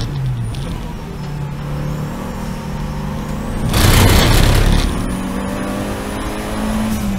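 Seat Leon race car engine running steadily at speed, its pitch creeping up slightly near the end. A loud rushing hiss lasting about a second cuts in midway.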